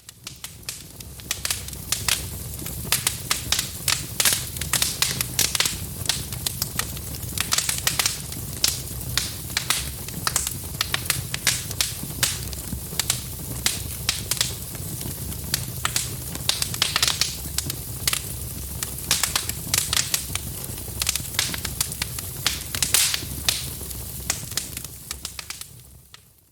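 Fire in a fireplace crackling, with frequent irregular sharp pops over a low steady rumble. It fades in over the first couple of seconds and fades out near the end.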